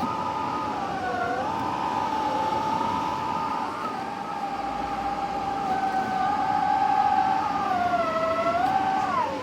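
Exhaust-heat fan of a Nakatomi spot air conditioner drawing air in through a gap between the outlet elbow and the top cover, making a whistling 'pee-pee' wind noise. The whistle holds a few tones at once that waver, dipping and rising in pitch several times. It is a leak where no air should be drawn in, which sealing sponge cures.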